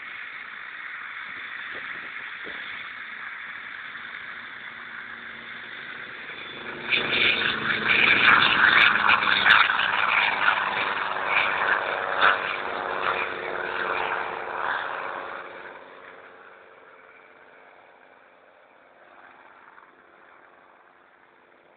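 Helicopter running with its rotor turning, growing suddenly louder about seven seconds in to a loud, beating rotor and turbine noise as it takes off and goes by, then fading away from about fifteen seconds.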